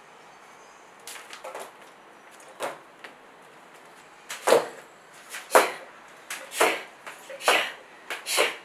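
Liquid paint being flung and splattered onto a canvas laid flat: a series of short splats, about one a second, louder from about halfway through.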